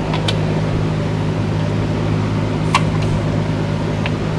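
A steady low hum runs throughout, with a few sharp metal clicks from a hand ratchet snugging down the cylinder head bolts on a Cummins ISX diesel engine.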